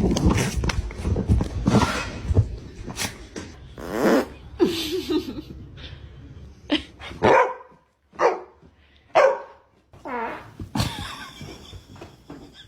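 A low, rasping fart noise at the start, then a dog barking in a series of short barks about a second apart, reacting to the fart prank.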